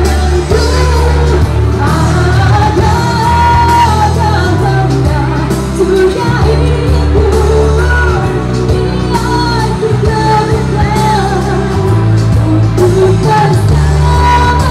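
A woman singing an Indonesian pop song into a microphone over a karaoke backing track with a heavy bass line, her voice gliding between held notes.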